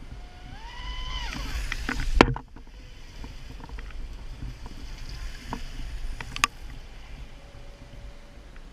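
RC boat motor whining up in pitch, holding and dropping away, over water noise. A sharp loud knock comes about two seconds in, another click past six seconds, and a faint steady tone near the end.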